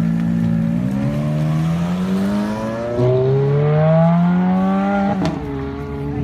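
Ferrari F430's flat-plane V8 accelerating hard, its exhaust note climbing steadily in pitch for about four seconds. An upshift about five seconds in drops the pitch before it settles.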